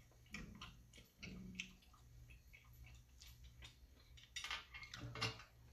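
Faint eating sounds from a person handling and chewing a juice-soaked Italian beef sandwich: scattered wet mouth clicks and small knocks against the plate, gathering into a denser run of clicks near the end.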